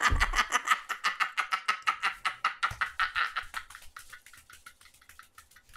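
Hard, breathless laughter in rapid breathy pulses, loud at first and dying away over the last couple of seconds.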